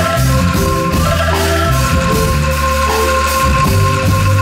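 Many angklungs, tuned bamboo rattles shaken in tremolo, playing a melody together note by note over sustained low bass notes.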